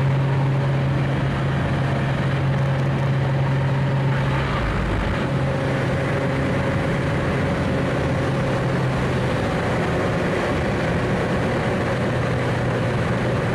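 Jump plane's propeller engine running steadily in flight, with wind rushing through the open door; its low tone shifts slightly a few times.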